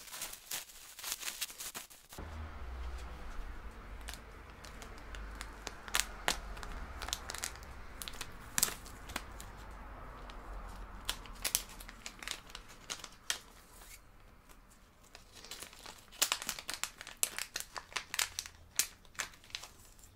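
Bubble wrap crinkling and crackling as it is cut open and unwrapped with a utility knife. Near the end comes a dense run of crinkles as a foil anti-static bag is handled and a flat display cable is pulled out of it.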